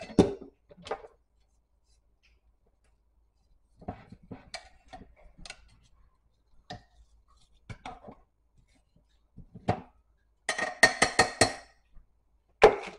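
Metal kitchen tongs clinking and scraping against a slow cooker's crock as the contents are stirred, with scattered light clicks, a quick rattle of ringing clinks near the end, and then a single sharp knock.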